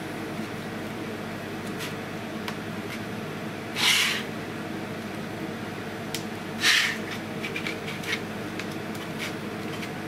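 Hands pressing and rubbing thin plastic film down onto a clear acrylic frame: two short swishes about two and a half seconds apart, with a few faint ticks, over a steady background hum.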